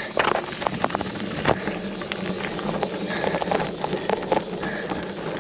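Bicycle ridden uphill on a gravel fire track: tyres crunching, with scattered clicks over a faint steady low hum.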